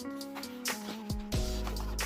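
Background music with a steady beat, bass and percussion.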